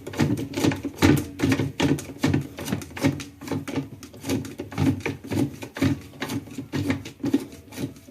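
Top-load washer agitator being tightened back down by hand: a run of quick, rhythmic clicks and knocks, about three a second.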